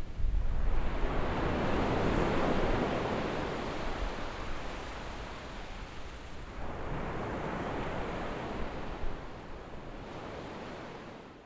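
Calm waves on a sandy beach, two gentle swells washing in and drawing back, the first building about half a second in and the second about six and a half seconds in.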